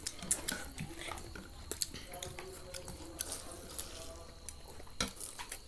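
Close, wet eating sounds: children chewing and slurping noodles, with many scattered small smacks and clicks. Faint voices in the background.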